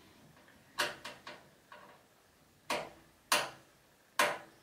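About seven sharp clicks and knocks at irregular spacing, with the last three the loudest: hard parts and tools being handled against a metal PC case during assembly.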